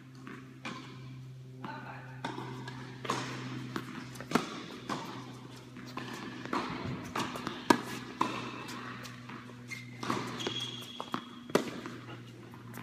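Tennis balls being struck by rackets and bouncing on an indoor hard court during a rally: irregular sharp pocks, with shoe scuffs, over a steady low hum in the hall.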